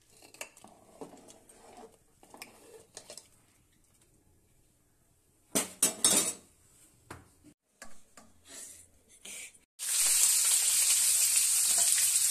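Metal ladle scraping and clinking in a pressure cooker as dal is stirred, with a burst of louder clinks about six seconds in. Near the end it switches abruptly to cauliflower florets sizzling loudly in hot oil in a wok.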